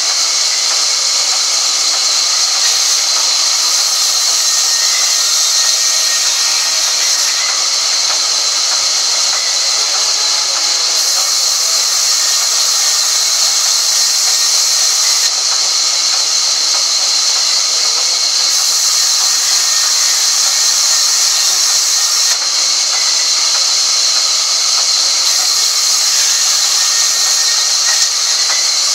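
Sawmill saw ripping a crooked log lengthwise, a loud, steady high-pitched hiss of the blade cutting through the wood.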